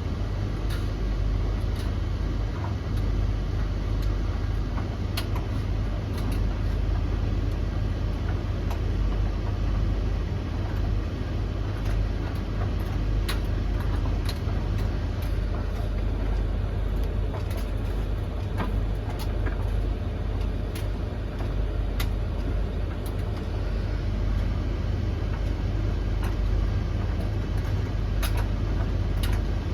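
Three tumble dryers running together mid-cycle: a steady low rumble of turning drums and fans, with scattered light clicks and taps throughout.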